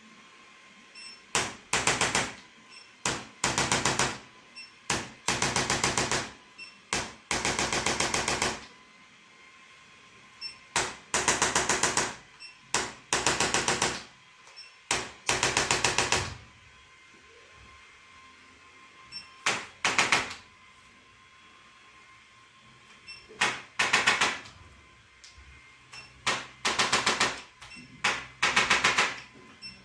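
Handheld electric percussion instrument used in chiropractic treatment, rattling in repeated bursts of very rapid taps. Each burst lasts from half a second to about a second and a half, often after a quick single tap, with short pauses between.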